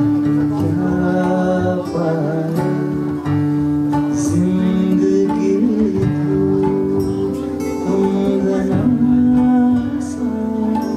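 Music with a plucked guitar over a long held low note.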